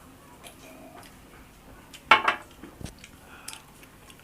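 Mouth and dish noises of a person eating mutton curry and rice: soft clicks and ticks, with one short, loud, noisy sound about two seconds in and a dull knock just after it.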